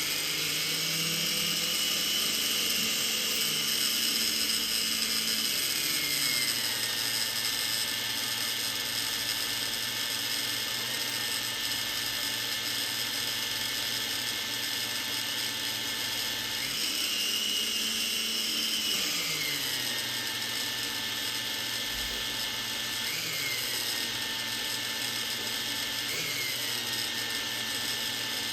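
Brushless motors of a Hubsan H501S drone spinning up on the bench with a whine that rises in pitch near the start, holds for about five seconds and winds back down. They rev up and down again about two-thirds of the way through, then give two short blips near the end, with a steady high whine in between.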